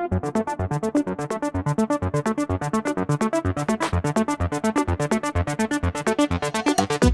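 Background electronic music: a fast, even pulse of synthesizer notes with a steady beat.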